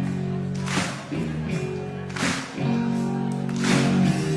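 Rock band music in an instrumental gap between sung lines: held guitar chords over bass, with a drum hit about every second and a half.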